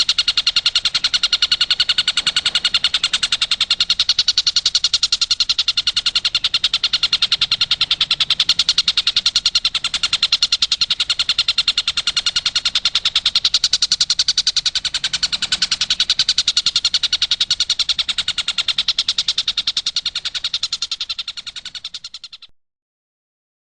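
Tengkek buto kingfisher calling in a rapid, evenly pulsed, high trill that runs on without a break, then fades slightly and stops abruptly near the end.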